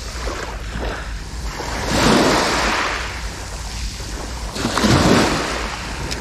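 Small waves breaking and washing up a pebble beach, swelling about two seconds in and again about five seconds in, with wind rumbling on the microphone.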